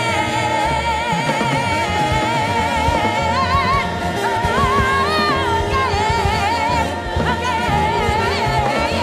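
Musical-theatre singing: a soloist and ensemble holding long sung notes with vibrato, backed by a live band.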